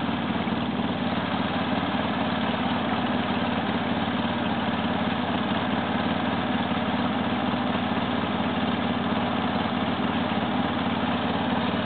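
Quad (ATV) engine idling steadily.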